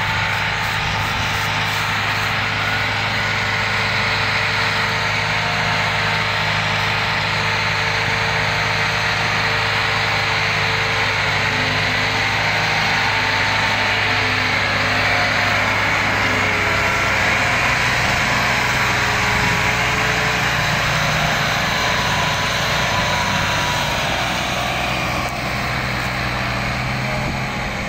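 Diesel tractor engine running steadily under load, hauling a heavily loaded sugarcane trolley; the engine note shifts about halfway through.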